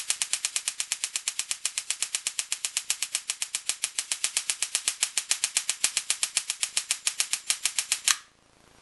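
Stun gun arcing in a rapid, even train of sharp electric snaps, about ten a second, the sparks striking a small pile of smokeless powder without igniting it. The snapping cuts off about eight seconds in.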